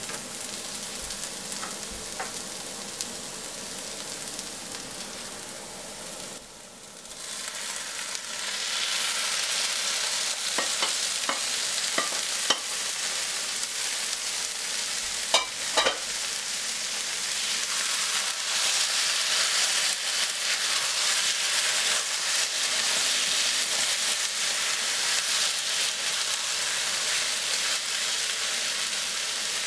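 Onions and then raw chicken liver sizzling in a hot frying pan, stirred with a spatula; the sizzle dips briefly and then grows much louder from about eight seconds in, once the liver is in the pan. A few sharp knocks sound near the middle.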